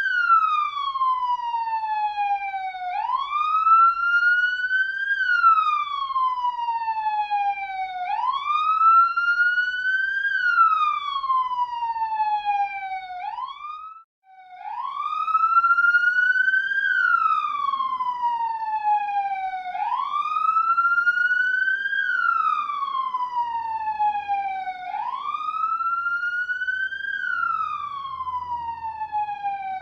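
Police siren wailing: a tone that rises for about two seconds and falls for about three, repeating about every five seconds. It cuts out briefly about halfway through, then starts the wail again.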